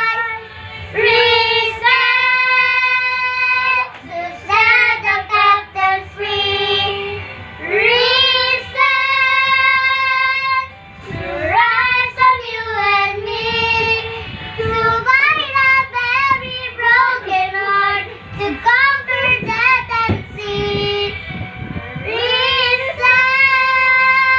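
Children singing a song, phrase after phrase, with long held notes.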